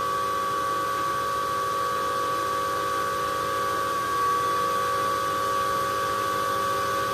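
Antminer S9j Bitcoin miner's cooling fans running at full start-up speed: a loud, steady whine made of several fixed tones over a rush of air. It has not yet settled to its normal, lower running speed.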